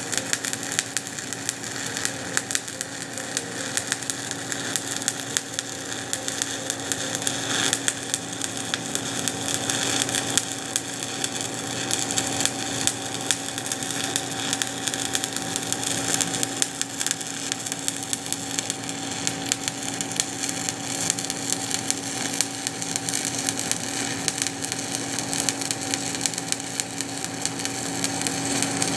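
Stick (SMAW) welding arc: a 1/8-inch 7018 electrode at about 119 amps crackles steadily and unbroken while laying a cover pass on steel pipe. A steady hum runs underneath.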